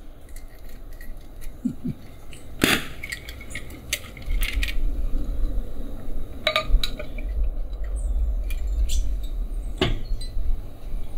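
A bottle of Prosecco is opened, its cork coming out with a sharp pop about three seconds in, and the sparkling wine is then poured into glass flutes, with light clinks of glass and another sharp knock near the end.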